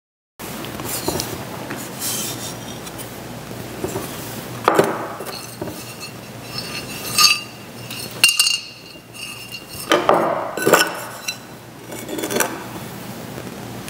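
Broken earthenware bowl being handled: its clay scrapes and rubs, with irregular sharp clinks and knocks, one of which rings briefly.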